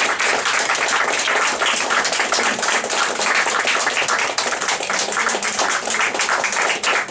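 Audience applauding: many hands clapping in a dense, continuous patter.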